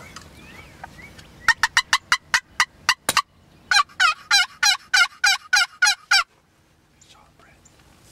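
Turkey yelping: a quick run of about nine sharp notes, then after a short pause a second run of about nine two-part notes that drop in pitch.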